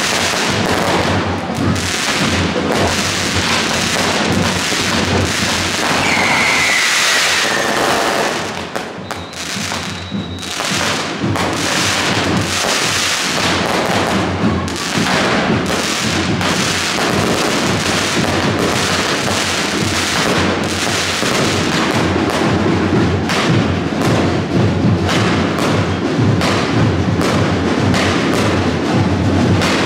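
Fireworks display: the continuous crackling and popping of fountains and aerial shells bursting overhead, with a falling whistle about six seconds in.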